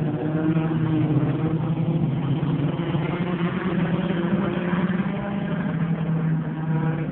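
Race car engines running together as the field laps a dirt oval track, a steady drone with several overlapping engine notes.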